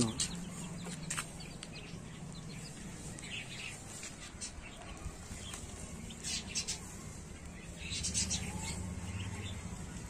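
Young chicks feeding on scattered grain, with a handful of short, high sounds coming every second or two over a faint steady low hum.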